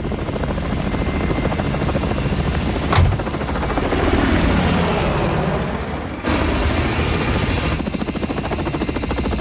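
Helicopter rotor chopping steadily, with one sharp click about three seconds in.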